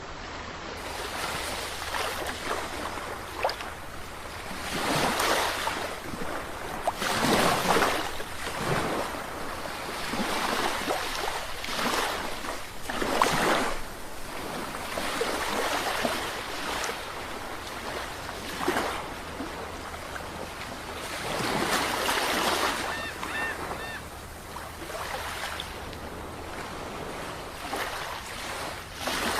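Sea waves breaking and washing onto the shore, the rushing surf swelling and falling away every few seconds.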